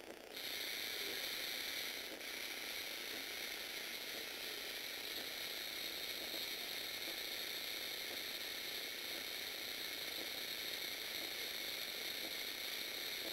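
Lego Technic Power Functions electric motor whirring through a plastic gear train as it lowers the crane truck's outrigger leg. It starts about half a second in and runs steadily, with a gritty, ratchety gear noise.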